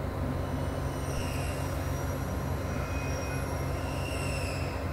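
Steady low background hum of room and equipment noise, like a fan running. Faint high thin tones come and go in the middle.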